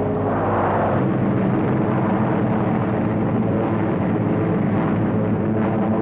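Steady drone of propeller aircraft engines, a low hum under a rushing noise.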